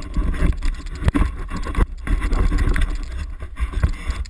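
Wind buffeting the microphone of an action camera held on a pole, a loud uneven rumble, with a few knocks from handling the pole.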